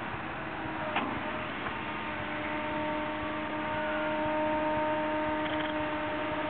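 Caterpillar 312 long-reach excavator working: a steady engine and hydraulic hum with a whine that grows a little louder in the second half. A single sharp knock about a second in.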